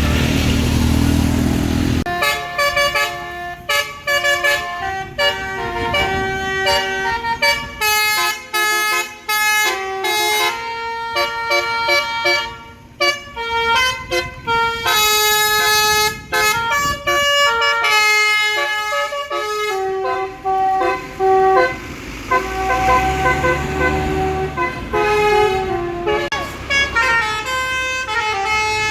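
Tour bus basuri (telolet) musical horn playing a tune: quick runs of pitched notes stepping up and down in phrases, with short breaks between them. A heavy vehicle engine runs underneath at the start and again about three-quarters of the way through.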